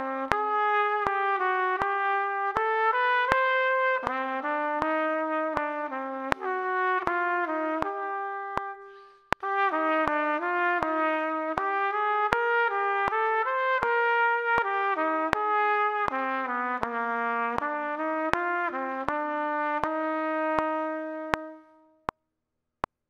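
Solo trumpet playing a continuous melodic etude line, note after note, with a short break for breath about nine seconds in. It ends on a held note that fades out near the end.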